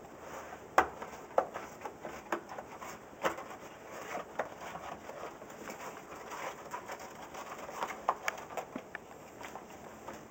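Rubber tire bead squeaking and clicking in short irregular bursts as the second bead of a tubeless-ready mountain-bike tire is worked over the rim by hand.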